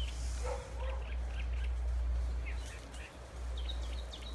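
Small birds chirping in short repeated calls, over a steady low rumble on the microphone.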